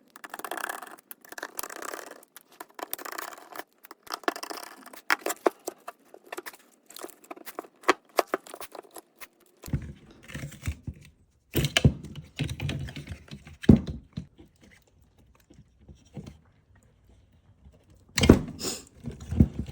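Screws being backed out of a car door speaker by hand, with rapid small clicks and metal clinks. From about ten seconds in, heavier knocks and thumps as the speaker and its parts are handled.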